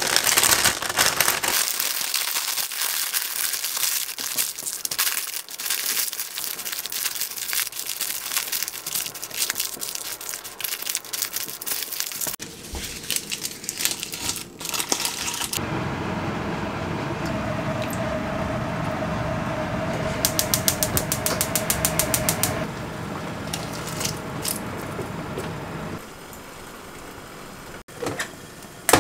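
Parchment paper crinkling and rustling as it is folded around salmon and vegetables for steaming, then a steadier hiss with a faint hum, broken by a quick run of ticks.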